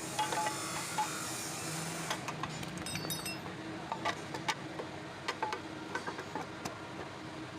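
Engine running steadily, with irregular light metallic clicks and ticks from the clutch box.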